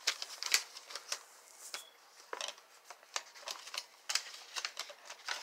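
Instruction leaflet and packaging handled by hand: irregular paper rustles and small sharp clicks.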